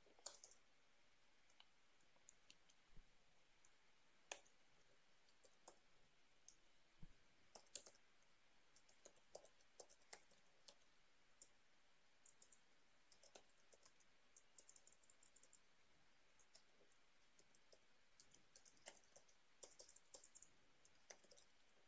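Faint computer keyboard typing: scattered single key clicks and short quick runs of clicks, with pauses between them.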